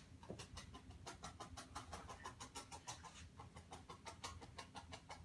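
A felting needle poking quickly into wool roving on a foam block, making a rapid, even run of faint clicks, several a second. This is the felting stage, with the needle worked over the piece until the fibres are flat and dense.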